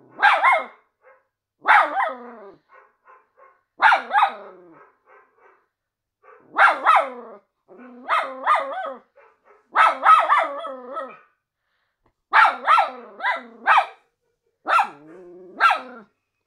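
Miniature schnauzer barking in short runs of two to four barks, a run every second or two, some barks sliding in pitch.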